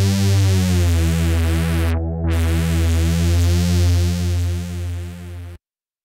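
Tone2 RayBlaster 2 software synthesizer playing its 'Bad glide bass' preset: a deep, loud synth bass pulsing about twice a second, which stops about five and a half seconds in.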